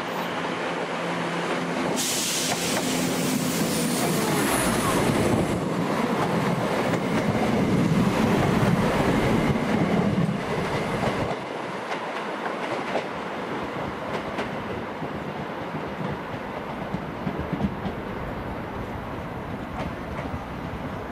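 Train moving through the station, its wheels clacking over rail joints and pointwork; loudest in the middle, then the clacking goes on more quietly.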